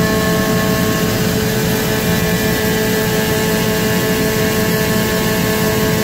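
Steady drone of running machinery: a continuous low rumble with several constant humming tones over it.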